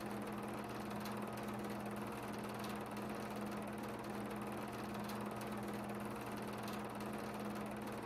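Steady low hum with a constant hiss and no music or speech: background noise of the soundtrack behind silent credits.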